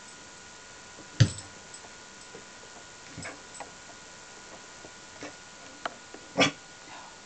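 A few sharp thumps and clicks over a faint steady background: a loud, deep thump about a second in, softer clicks in the middle, and another loud short burst near the end.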